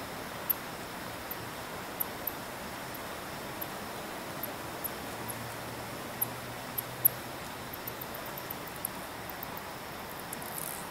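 Steady hiss of night-time outdoor ambience, with scattered short, very high-pitched ticks throughout, bunched more closely near the end, and a faint low hum for a couple of seconds midway.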